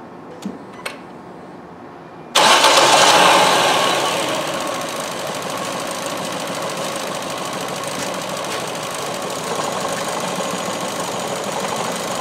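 Two faint clicks, then about two seconds in the Ford C-Max's 1.6 petrol four-cylinder engine starts. It is loud for about a second, then settles to a steady rough idle, misfiring with cylinders 2 and 3 not firing.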